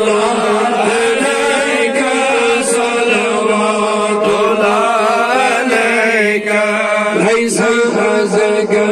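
Men chanting a Salaam, a devotional salutation to the Prophet, into a handheld microphone: one voice leads the wavering melody while others join, over a steady held drone.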